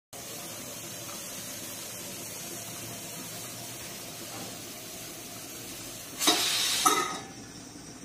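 Steam hissing steadily out of a pressure cooker's open vent pipe. About six seconds in comes a louder, short double burst of hiss with a brief whistling tone as the whistle weight is set on the vent, and then the hiss falls quieter.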